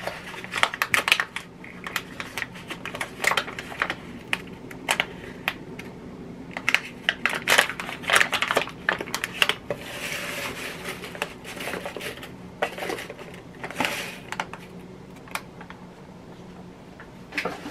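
Kitchen handling sounds: many quick clicks and light taps, with stretches of crinkling and rustling, as packaging of Jiffy cornbread mix is handled and opened.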